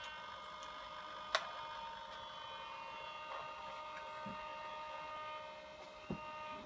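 Steady, faint electrical whine of several held tones from the powered InMoov robot's servos and electronics, with a sharp click about a second and a half in and a soft thump near the end.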